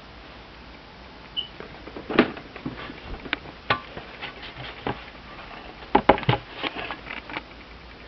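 Irregular clicks, taps and knocks of a portable manual typewriter being handled and turned around on a surface, with the loudest knocks about two seconds in and a quick cluster about six seconds in.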